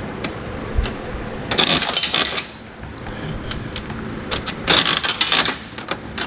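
Coin-operated gumball-style vending machine's metal coin mechanism worked by hand: scattered clicks, then two spells of metallic rattling and clicking as the handle is turned, one a little after a second in and one near the end.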